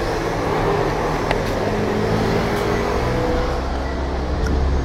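Street traffic with a motor vehicle's engine running close by; its low hum grows louder toward the end.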